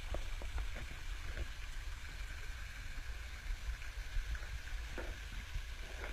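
Swimming-pool water lapping and splashing close to the microphone, with a low rumble and a few small splashy ticks, a cluster in the first second and another about five seconds in.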